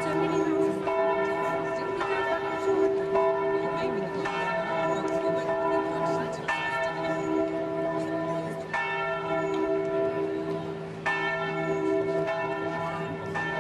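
Bells ringing a slow series of differing notes, a new strike a little over once a second, each note ringing on under the next.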